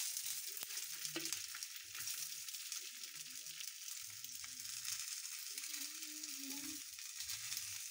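Smokies and sausages sizzling steadily in hot oil in a frying pan, with small clicks of metal tongs against the sausages and pan as they are turned.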